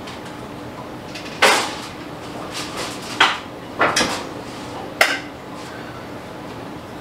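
Kitchen clatter of dishes and utensils being handled: about five sharp knocks spread over a few seconds, over a faint steady hum.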